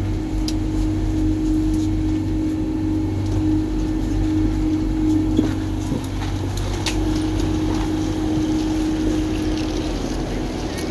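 Regional train's steady running hum and low rumble, with a couple of faint clicks.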